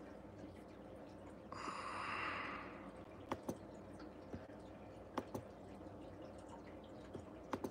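A man breathes out in a sigh through his nose, about a second and a half in, over steady low room hum. Three faint pairs of short sharp clicks follow.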